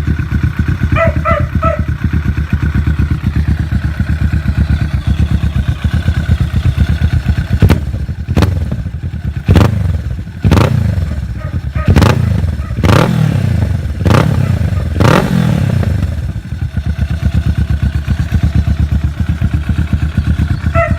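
Kawasaki Ninja 650's parallel-twin engine through a Yoshimura R77 full exhaust, idling, then revved in a series of about seven quick throttle blips between roughly eight and sixteen seconds, each rising and falling back, before settling to idle again.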